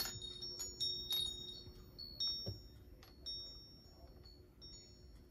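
Light tinkling clinks, each ringing briefly with a high tone, coming several times a second at first and thinning out toward the end, with one soft knock about halfway through.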